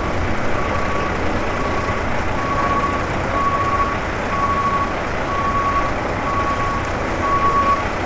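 Avro RJ85's four jet engines running steadily as the airliner taxis, with a vehicle's reversing alarm beeping at one pitch about once a second.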